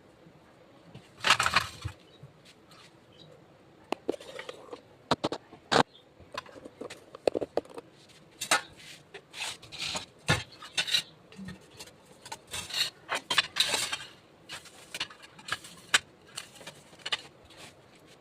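Kitchen utensils and dishes clinking and scraping in an irregular clatter of sharp clicks and short scrapes, with a louder scrape about a second and a half in and a longer one near the three-quarter mark.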